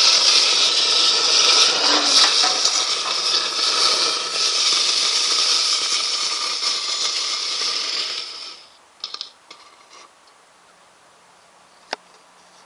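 Firework burning inside a metal mailbox, giving a loud, steady hiss as it sprays sparks out of the slot. The hiss dies away about two-thirds of the way through, leaving a few faint crackles and one sharp click near the end.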